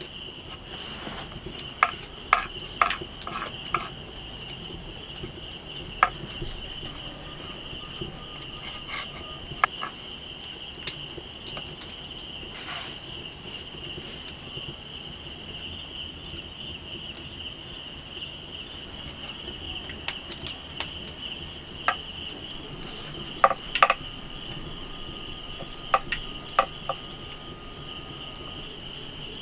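Steady high-pitched chirring of insects, with scattered sharp clicks and taps, several in quick clusters.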